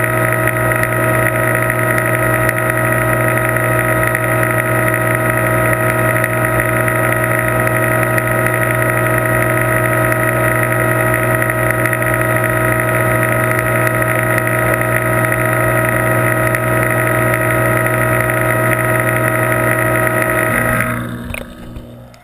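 Steady mechanical hum of an aquarium pump, a low drone with several fixed tones; it fades out about a second before the end.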